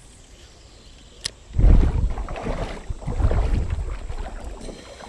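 Shallow creek water sloshing and splashing around the legs as someone wades a few steps through it, starting suddenly after a short click about a second in.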